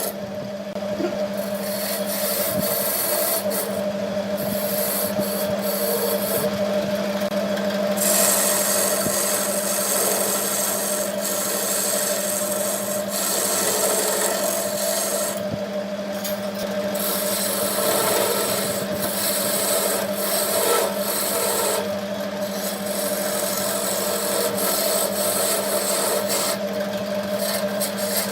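Wood lathe running with a steady motor hum while a turning tool scrapes and cuts the spinning wood. The cutting noise eases off briefly several times as the tool leaves the work.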